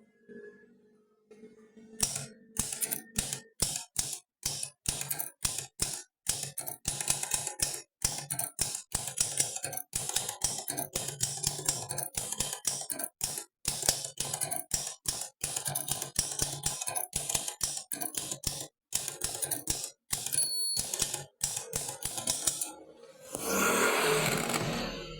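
Olympia typewriter being typed on: rapid, irregular clacks of the typebars striking the platen, starting about two seconds in. A short ringing tone sounds about twenty seconds in, and near the end comes a longer rasping sound of about a second and a half.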